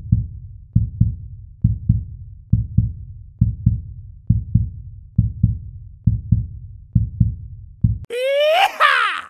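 Heartbeat sound effect in a channel intro: deep double thumps, about one pair a second, then a short gliding tone near the end.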